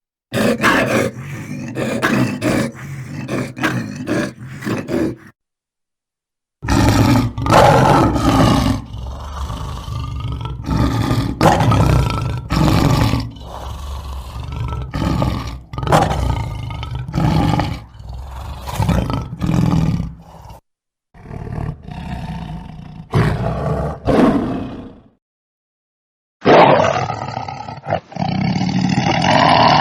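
A lion roaring in repeated calls, in several separate recordings joined one after another, with dead-silent breaks about five seconds in, around twenty seconds and around twenty-five seconds.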